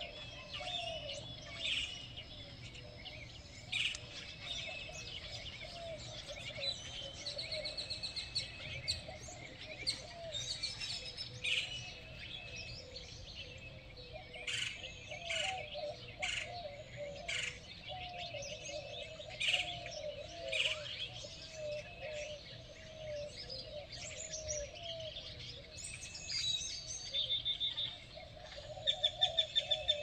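A morning chorus of many songbirds singing and calling over one another: short chirps, whistles and trills, with a rapid run of loud repeated notes near the end.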